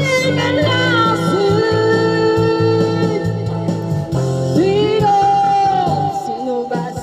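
Videoke (karaoke) singing: a singer holds long, gliding notes into a handheld microphone over a machine's backing track.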